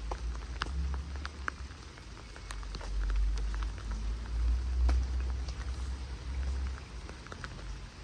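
Light rain with scattered drops ticking irregularly. Under it runs a low rumble that swells and is loudest in the middle.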